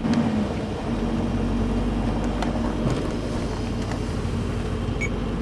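Steady road noise inside a moving vehicle: engine hum and tyre rumble, with a few faint ticks.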